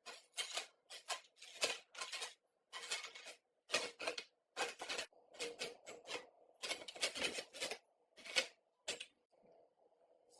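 Short rasping strokes of a hand tool scraping or rubbing a part, about two a second at an uneven rhythm, stopping shortly before the end.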